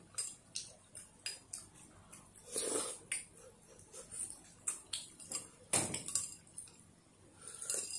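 Spoons clinking and scraping against ceramic soup bowls as two people eat, a string of light, irregular clinks. Two louder, noisier sounds come about three and six seconds in.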